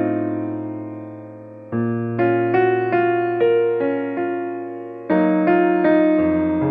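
Background piano music: chords struck and left to ring and fade under a slow melody of single notes, with fresh chords about a third of the way in and again near the end.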